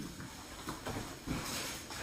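Jacket fabric rustling as it is swung and pulled on, with a few soft thuds and a louder swish near the end.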